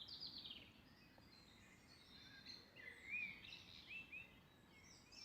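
Wild birdsong, faint: a quick run of high notes right at the start, then several short arched chirps about three to four seconds in.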